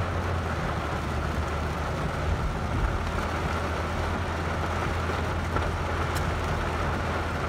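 Heavy rain pouring onto a pickup truck's roof and windshield, heard from inside the cab as a steady hiss over the low rumble of the truck's running engine.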